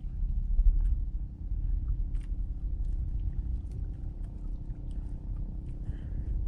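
Low, steady rumble of wind and sea water around a small outrigger boat on open water, with faint clicks now and then.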